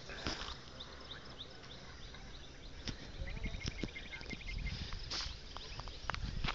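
Wild birds chirping and calling in the open air, many short high notes overlapping, with one bird giving a quick run of evenly repeated notes about three seconds in. A low rumble and a few sharp clicks run underneath.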